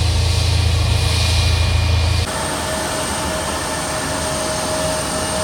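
Airport ramp machinery noise: a heavy engine rumble that cuts off abruptly about two seconds in, giving way to a steady whine over a hissing roar, as from a jet engine or auxiliary power unit.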